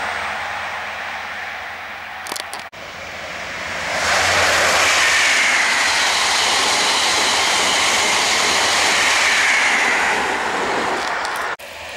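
InterCity 125 high-speed diesel train (Class 43 power cars) passing at speed: a rushing noise of wheels on rail and air, easing off at first, then loud and steady from about four seconds in until it breaks off sharply near the end.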